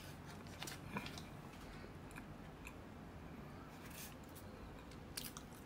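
Faint mouth sounds of a person chewing a bite of chocolate chip muffin: a few soft, scattered clicks over a low steady room hum.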